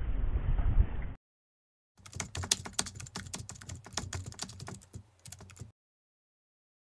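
Wind and boat noise on the microphone that cuts off about a second in. After a moment of dead silence come nearly four seconds of quick, irregular key clicks of keyboard typing, fuller and crisper than the boat audio, like an edited-in typing sound effect.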